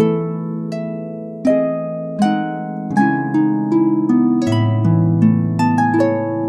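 Calm background harp music: plucked notes and chords, each struck sharply and left to ring and fade, about one new note or chord every half to three-quarters of a second.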